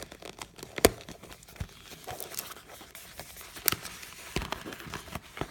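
Watch packaging being opened by hand: rustling and crinkling of wrapping with scattered clicks and a few sharp knocks, the loudest about a second in.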